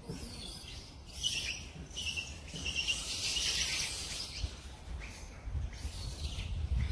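Outdoor ambience: a high insect-like hiss with a few short, high chirps, over a low rumble.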